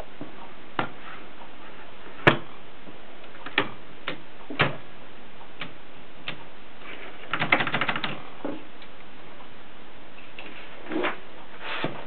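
Gossen Tippa portable typewriter's mechanism clicking as it is handled: single sharp clicks and knocks every second or so, with a quick rattling run of clicks a little past halfway.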